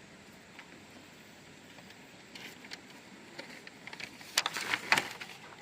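Low background hiss, then about four seconds in a short burst of rustling with two sharp clicks about half a second apart: handling noise.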